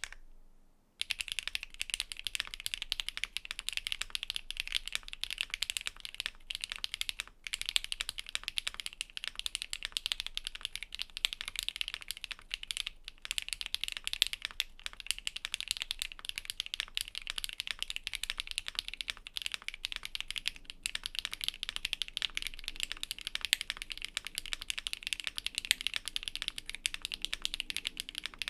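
Typing on a Luminkey LK75 V2 mechanical keyboard with a polycarbonate plate and LK Astral switches: a dense, fast stream of keystroke clacks that starts about a second in after a single tap, with a few brief pauses.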